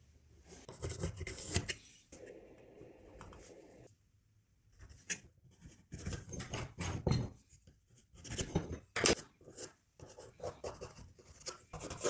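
Pencil scratching lines onto a pine block along a steel square, in short irregular strokes with a brief pause partway through, along with wood and the square being shifted on the bench.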